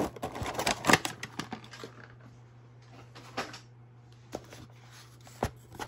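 Thin clear plastic packaging tray crackling and clicking as it is handled, dense for about the first two seconds, then a few single taps, over a faint steady low hum.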